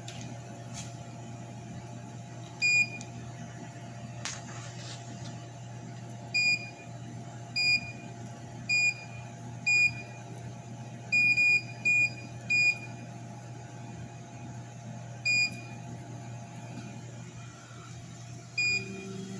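Keypad beeps from a CNC laser cutter's control panel as its buttons are pressed: about a dozen short, high, identical beeps at irregular intervals, several in quick succession midway, over a steady low machine hum.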